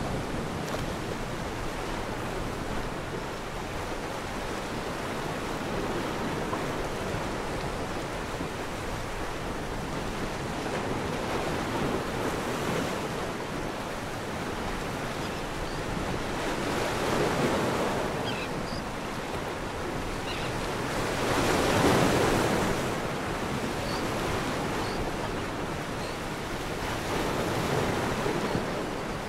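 Ocean waves washing and breaking in a steady rush, with slow surges that build and fall back, the loudest about two-thirds of the way through.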